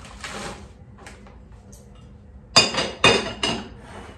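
A small glass bowl of biscuits clinking on a stone kitchen counter: three sharp clinks about two and a half to three and a half seconds in, after a faint soft rustle near the start.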